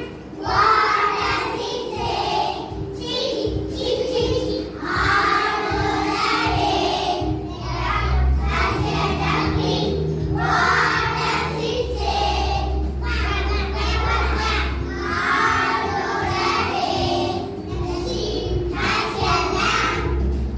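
A group of young children singing a song together over recorded backing music, with a steady bass line entering partway through.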